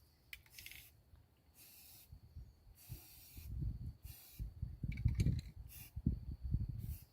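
Aerosol spray paint can hissing in about six short bursts as a coat is sprayed on.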